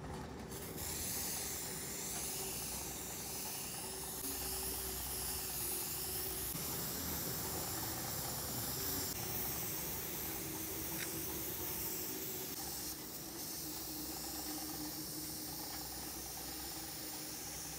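Handheld paint sprayer spraying thinned white oil paint: a steady hiss, with a brief dip about two thirds of the way through.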